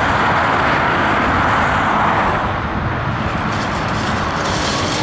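Road traffic: a steady rush of passing-vehicle noise that fades about two and a half seconds in. After a cut, a Komatsu PC290LC excavator running more quietly, with a few faint ticks.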